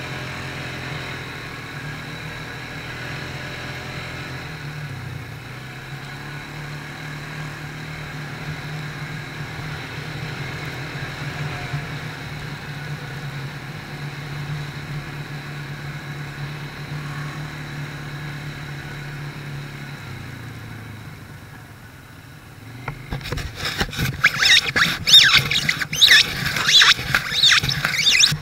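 Quad bike engine running at a steady speed, then easing off. Near the end come loud, irregular crackling and rubbing sounds on the camera's microphone as the camera is handled.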